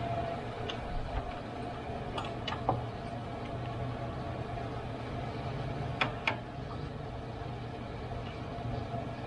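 Sharp clicks and taps of a screwdriver working on the plastic top of a car radiator, a few scattered in the first three seconds and a louder pair about six seconds in, over a steady low hum.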